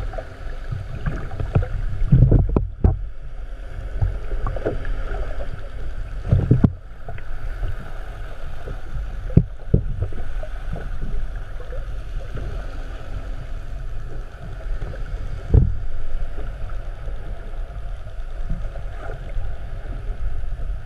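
Steady low rumble of a fishing boat on the water with wind on the microphone, broken by several heavier thumps.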